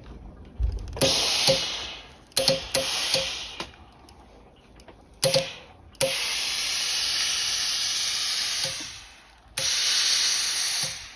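Steam iron shooting steam while pressing and shaping cloth: several short hissing bursts, each starting with a small click, then two longer steady hisses near the end.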